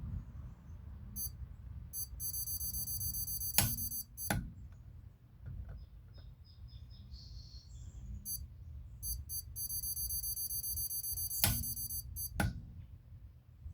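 Digital torque meter beeping, the beeps coming faster until they run into a steady tone as torque builds, then a click-type torque wrench set to 63 foot-pounds clicks sharply, with a second click soon after. This happens twice.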